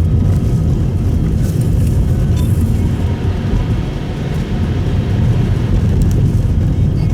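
Subaru Impreza Sport (GP7) cruising, heard inside the cabin: a steady low drone of engine and tyre noise that eases slightly about four seconds in.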